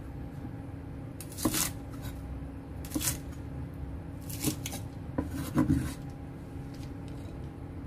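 Chef's knife chopping spring onions on a wooden cutting board: several sharp chops in loose groups spaced a second or more apart, the last group the loudest, over a faint steady hum.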